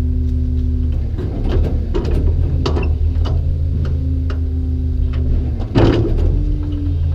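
Garbage truck idling while its front-mounted hydraulic grabber arm cycles: the engine note changes as the hydraulics take load about a second in, with metal clanks and one loud bang near six seconds, followed by a steady hydraulic whine.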